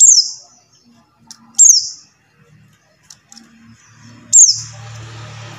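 Pleci buxtoni white-eye giving three short, sharp calls, each sliding down in pitch, the second about a second and a half after the first and the third nearly three seconds later. A low steady hum comes in just after the third call.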